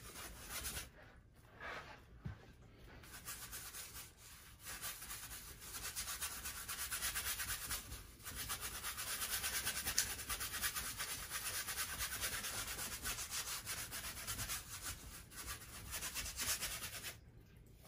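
Wide flat brush scrubbing acrylic paint onto a stretched canvas: a steady dry rasping of bristles on canvas, broken by a few short pauses between strokes and stopping shortly before the end.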